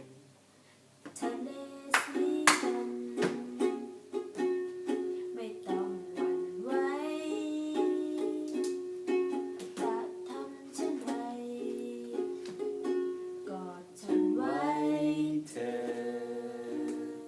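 Music: a song with a singing voice over a plucked string instrument, after a brief pause about a second in.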